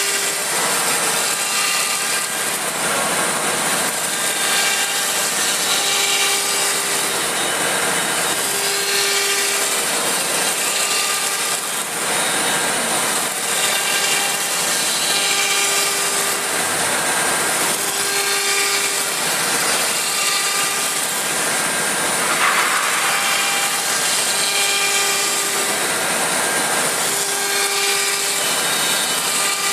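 CNC router's 9 kW HSD spindle cutting steadily, with a short pitched tone that comes and goes every second or two as the cutter works along its path.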